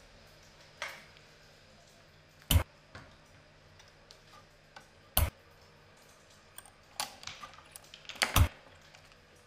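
Scattered clicks and knocks from a homemade chain-reaction machine of wooden rulers, skewers and metal rods as its parts trip and move: two sharp knocks about two and a half and five seconds in, then a quick run of clicks near the end ending in another loud knock.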